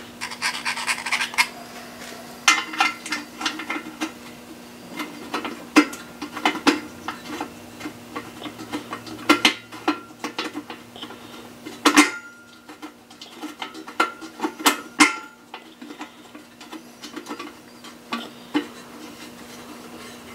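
Small metal clinks and clicks of hand tools and bolts as the oil pump pickup tube bracket is bolted down. A quick rattle of clicks comes in the first second or so, and single sharp knocks are scattered through the rest.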